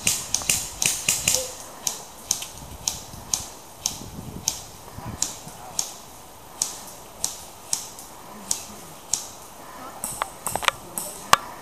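Airsoft guns firing single shots: a run of sharp pops, quicker at first and then about two a second, with a few louder cracks near the end.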